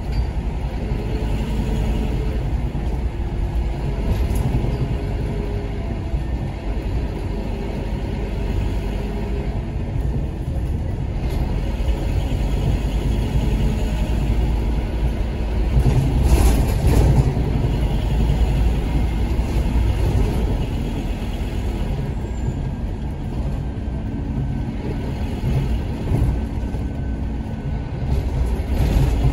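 Scania K230UB Omnilink single-decker bus heard from inside the saloon while driving: its five-cylinder diesel engine runs with a steady low rumble alongside the whine of its ZF Ecomat automatic gearbox. A brief louder rush comes about halfway through.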